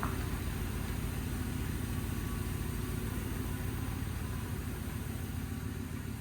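2015 GMC Sierra's engine running steadily, a low, even hum, now that the new starter has cured its no-crank fault.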